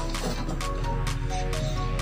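Background music: a melody of short notes over a steady beat.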